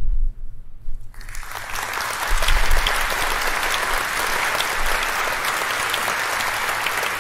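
Audience applause: many people clapping, starting about a second in after a low rumble and then holding steady.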